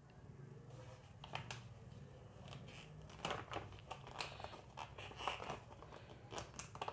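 Clear plastic retail pouch of a phone case crinkling and rustling as fingers handle and tug at its sealed edge, with scattered small crackles.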